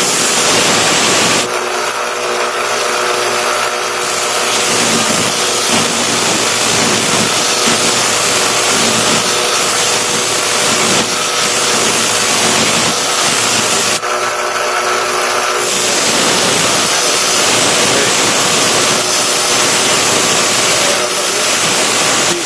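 Belt grinder running with a steel bayonet blade held against the belt: a steady motor hum under a loud grinding hiss. The hiss eases briefly twice, about a second and a half in and again about fourteen seconds in, then comes back.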